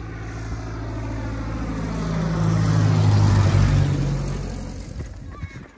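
Light propeller airplane flying low overhead on its landing approach. Its engine grows louder to a peak about three seconds in, drops in pitch as it passes, then fades away.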